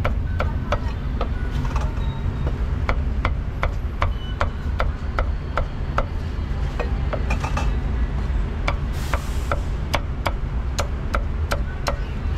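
Meat cleaver chopping braised pork and roast duck on a round wooden chopping block: a run of sharp, even chops, about three a second, over a steady low rumble.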